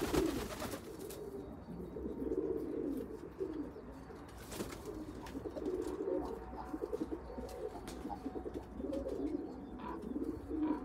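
Domestic pigeons cooing in a loft, low rolling coos following one another without a break, with a few faint clicks among them.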